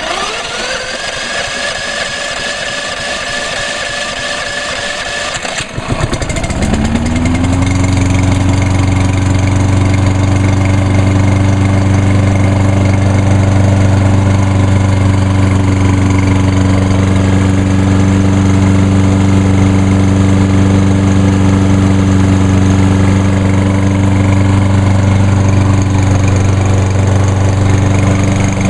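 Electric starter whining on a Lawn-Boy 10606 mower's Kohler Courage XT6 149 cc single-cylinder engine for about five seconds, then the engine catches, revs up and settles into a steady run.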